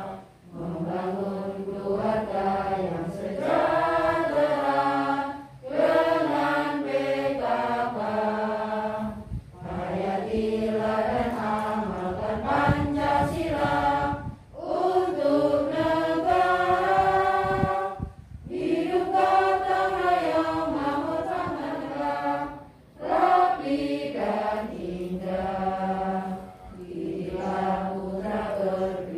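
A group of women singing a song together in unison, in phrases of a few seconds with short breaks for breath between them.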